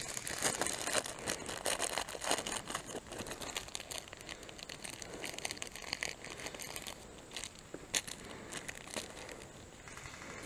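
Dry pine needles and leaf litter crunching and rustling under someone shifting and crouching, with close clothing and gear rustle: a dense run of small crackles that thins out in the second half.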